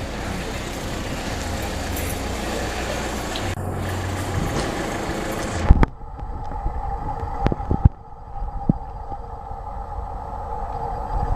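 Street traffic noise, cut off abruptly about halfway through by a loud bang like a door shutting. Then comes a quieter steady hum with several sharp clicks.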